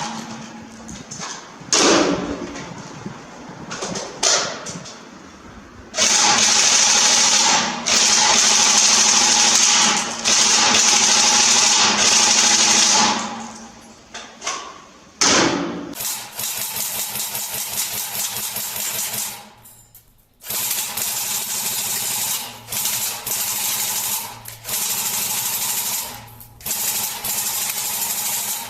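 Tokyo Marui SCAR-H airsoft electric gun firing on full auto. One long burst lasts several seconds, a third of the way in, followed by a string of shorter bursts of one to three seconds in the second half. A few single knocks come before the first burst.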